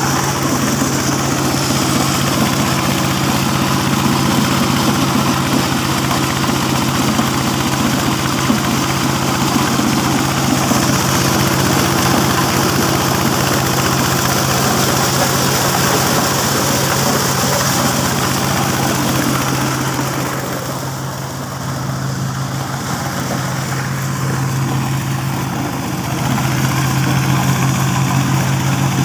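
Engine-driven corn sheller running steadily, its engine humming under the clatter of the threshing drum and blowers, with shelled kernels rattling out into basins. The sound dips for a few seconds about two-thirds of the way through, then comes back to full strength.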